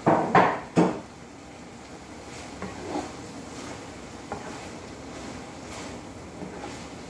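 Three loud clatters in the first second, then a metal ladle scooping and stirring liver in a nonstick wok, with soft clicks and taps against the pan over a steady background hiss.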